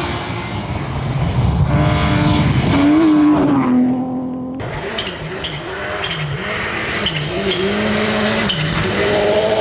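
Rally car engine at full throttle, climbing in pitch and then running up and down through quick rises and drops as the car is driven hard, with a few short sharp cracks.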